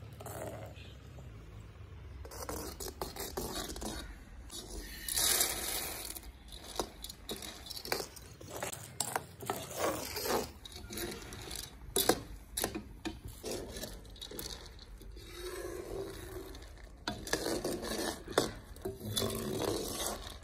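Corn kernels frying in hot oil in an iron kadai, sizzling, while a metal ladle scrapes and clinks against the pan as they are stirred, in irregular strokes.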